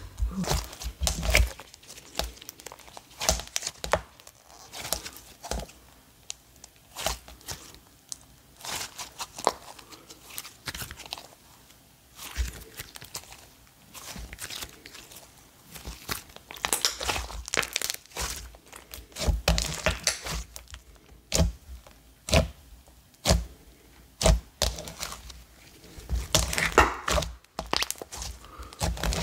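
Soft, buttery clay slime kneaded, pressed and stretched by hand, giving a dense run of small pops and crackles in irregular clusters.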